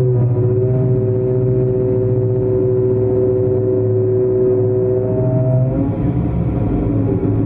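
Long-arm excavator's diesel engine running under hydraulic load, a steady hum of several tones. The pitch drops and changes near the end as the load shifts.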